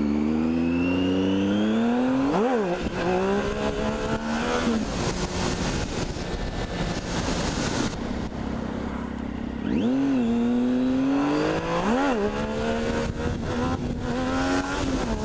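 Triumph Street Triple's three-cylinder engine pulling under throttle, its pitch climbing, with sharp rev spikes and drops about two seconds in and again near twelve seconds. In the middle stretch the engine pitch fades under a rushing noise of wind on the microphone.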